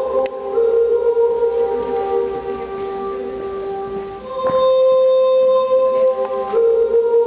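The show's music: slow held notes that shift pitch every second or two, with a single struck hit about halfway through.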